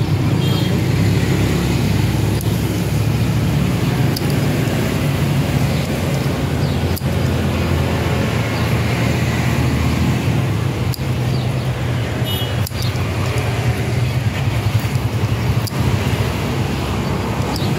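A steady low mechanical rumble runs throughout. A few sharp clicks of scissors snipping through lettuce stems come every few seconds.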